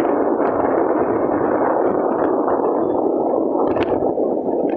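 Steady rushing wind and running noise, heard from a motorcycle moving at speed, with a brief click near the end.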